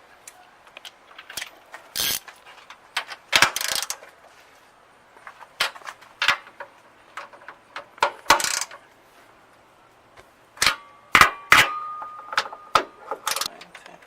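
Metal tools and parts clinking and clanking in a string of separate sharp knocks, one ringing briefly with a clear tone about eleven seconds in.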